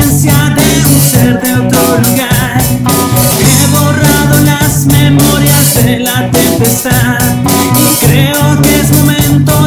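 A band playing a song: electric guitar, electric bass and a drum kit, with a man singing lead.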